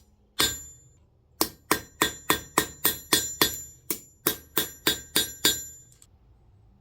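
Hand hammer striking cold steel on an anvil, each blow ringing like a bell. One blow, a pause, then a steady run of about three blows a second with a brief break midway.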